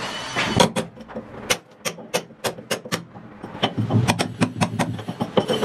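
Hammer driving a chisel into a hollow clay-brick wall: repeated sharp strikes, about three or four a second, starting about half a second in. The wall is being chiselled deeper, into the second layer of brick, to recess a concealed shower mixer box.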